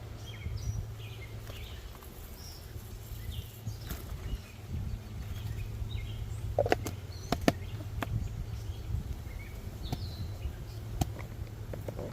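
Outdoor ambience at an open honeybee hive: a steady low hum under short, scattered bird chirps, with a few sharp clicks of handling near the middle and once near the end.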